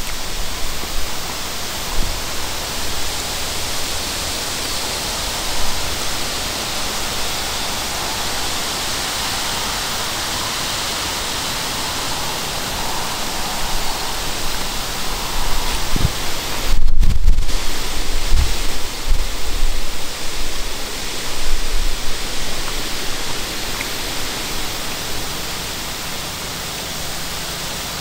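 Steady rushing wind noise, with gusts buffeting the microphone as low rumbles a little past halfway.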